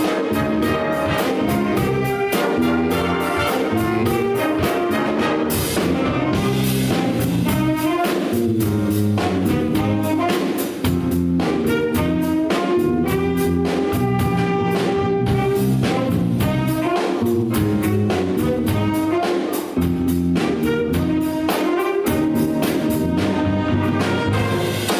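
A big band playing a jazz number: trumpets, trombones and saxophones playing together over a steady beat.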